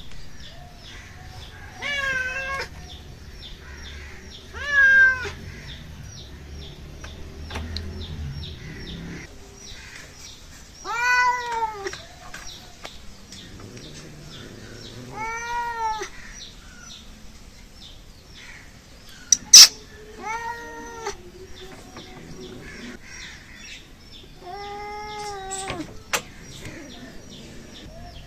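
A cat meowing: six long, arching meows spread out with pauses between them. A single sharp click about two-thirds of the way through is the loudest sound.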